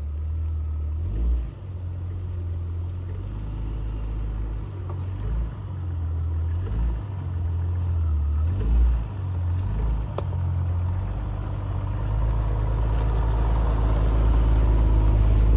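Jeep engine running under load as it crawls a rocky off-road trail, its revs rising and falling unevenly. There is a sharp click about ten seconds in, and it grows louder near the end.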